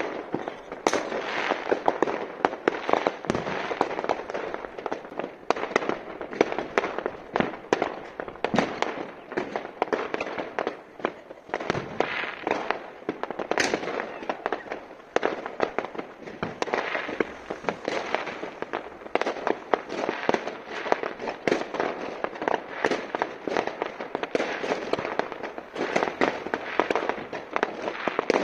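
Many fireworks and firecrackers going off across a town at once: a dense, unbroken crackle of bangs and pops, with sharper, louder cracks standing out here and there.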